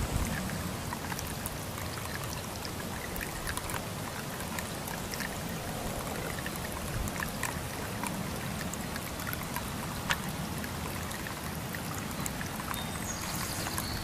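Water trickling down the flower-shaped cups of a small solar-powered garden fountain into its basin, a steady splashing with scattered small drips.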